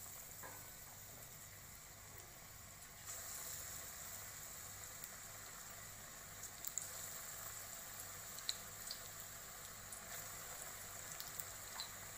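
Batter-coated potato balls deep-frying in hot oil: a steady sizzle and bubbling that grows a little louder about three seconds in, with scattered small pops and crackles.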